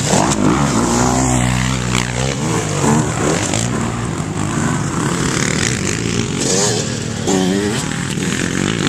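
Motocross dirt bike engine running hard as the bike passes close, its pitch falling as it goes by. It revs up and down again a few seconds later as it carries on along the track.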